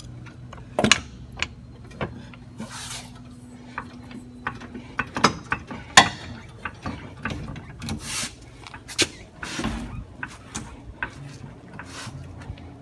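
Irregular metal clicks and clanks of a car jack being worked under the car, with a few short scraping swishes.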